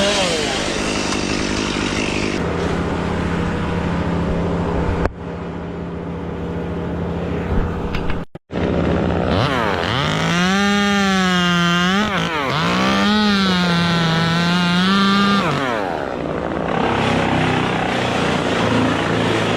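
Chainsaw engine running throughout. After two abrupt breaks in the sound, the pitch sags and climbs back twice in the second half, as the saw slows in the cut and picks up again.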